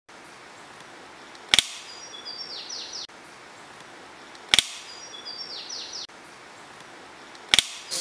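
A sharp snap three times, about three seconds apart, the first two each followed by a short run of high bird chirps and quick falling notes, over a steady hiss; the same three-second stretch of sound repeats.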